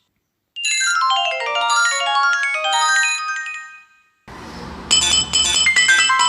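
Nokia 1110 ringtone tunes played back as synthesized melodies. A quick run of stepped notes starts about half a second in and fades out near four seconds. After a brief gap another ringtone begins, with a bass line and regular drum-like hits that thicken about a second later.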